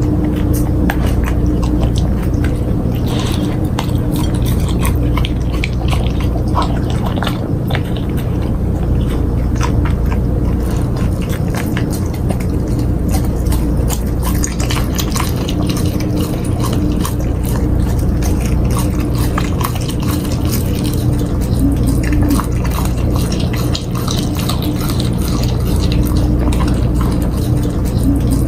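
Golden retriever chewing a large piece of cooked steak: wet smacking and irregular clicks of teeth gnawing the meat, over a steady low hum.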